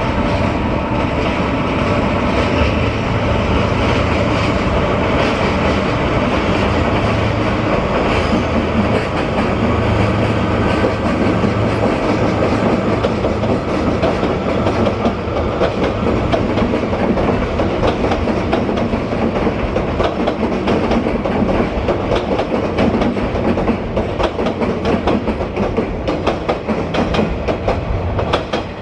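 A train passing: a JR Hokkaido DE15 diesel locomotive's engine drones steadily while the wheels of the cars it hauls click over rail joints. The clicking grows denser from about halfway through.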